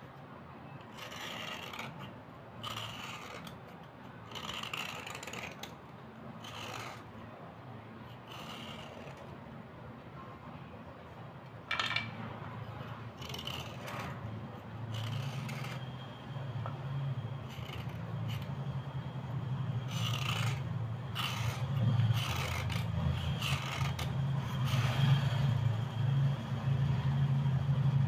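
A small knife blade scraping white slate pencils, dry gritty strokes coming every second or two. A low steady hum underneath grows louder in the second half.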